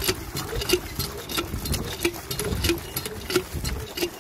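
Repaired hand water pump being worked, gushing water from its spout into a bucket in a steady splashing stream. The mechanism gives a regular squeak and click about every two-thirds of a second. The pump is drawing and delivering water again after its crack was brazed and its gasket replaced.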